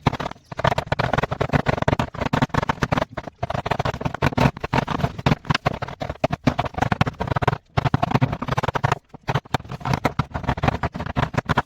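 Carving a wooden bed headboard with chisel and mallet: rapid, irregular sharp taps, several a second, with a few short pauses.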